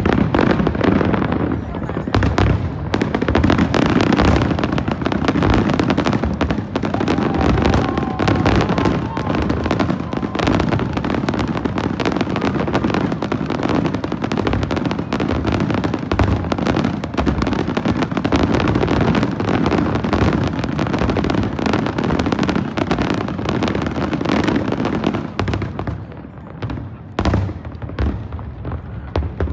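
Fireworks display going off in a dense, continuous barrage of overlapping booms and crackling bursts. The barrage thins out a little near the end.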